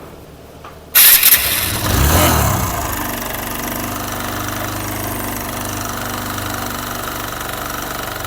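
TVS Apache RTR 160 single-cylinder fuel-injected motorcycle engine starting about a second in, given a short blip of revs, then idling steadily with a heavy chattering rattle from the timing chain, noise loud enough that the chain is due for replacement.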